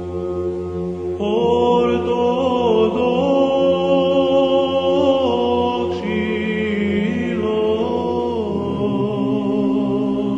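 Unaccompanied Orthodox church chant, voices singing a melody that moves in steps over a held low drone note. The melody comes in about a second in, and the drone changes pitch near the end.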